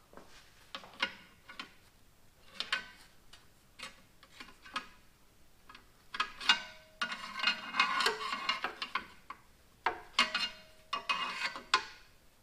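Steel pry bar levering against the flywheel and torque converter of the C10's automatic transmission: irregular metal clinks and scrapes, with a longer grinding scrape a little past the middle. No loose rattle shows up; the flywheel bolts are tight.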